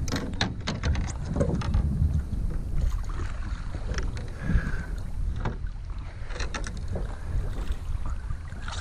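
Black drum hauled out of the water onto a paddleboard deck: low drumming from the fish under repeated knocks and clicks of the fish and tackle against the board, with wind rumbling on the microphone.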